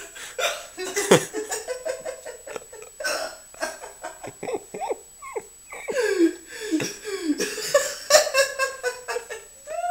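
A man hiccupping hard again and again in quick, irregular succession, with giggling between the hiccups.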